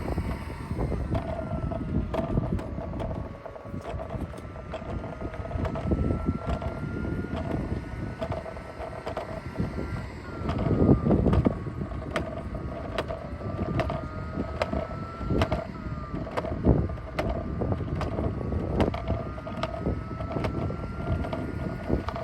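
Roomba robot vacuum running as it rolls along a dock: a steady motor whine with a second, higher tone that slowly rises in pitch and drops back twice, over frequent small clicks and a low rumble of wind on the microphone.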